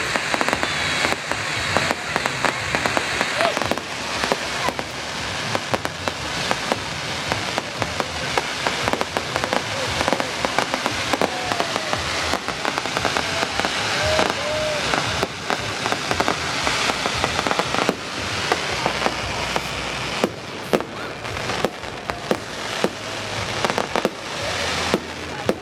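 Fireworks display going off: continuous dense crackling packed with many sharp pops and bangs.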